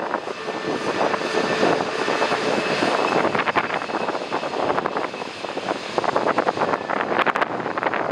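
Jet airliner passing on landing: its engines make a steady rush with a faint high whine. Gusty wind buffets the microphone and crackles over it.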